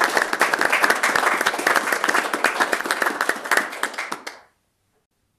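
Audience applauding: many hands clapping in a dense patter that dies away about four seconds in.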